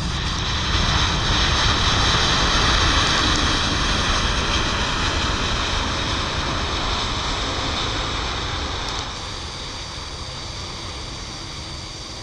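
Boeing 787-8's Rolls-Royce Trent 1000 jet engines running loud on the landing roll-out. The noise swells about a second in and eases off after about nine seconds.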